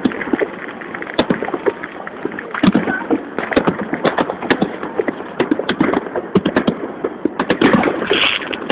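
Fireworks going off: a dense, irregular stream of sharp bangs and crackles from aerial shells bursting, several reports a second.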